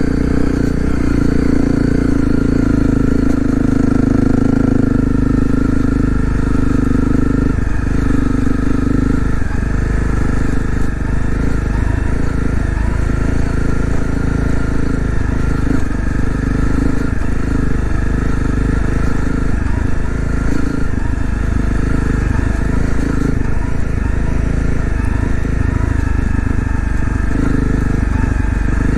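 2018 Honda CRF250L's single-cylinder four-stroke engine running under way on the ride. The engine note is steady for about the first nine seconds, then wavers up and down for the rest.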